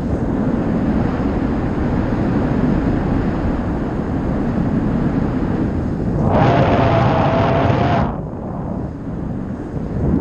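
Airflow buffeting the camera microphone during paraglider flight, a steady low rush. About six seconds in, a louder, brighter hiss with a steady tone in it lasts under two seconds, then drops away.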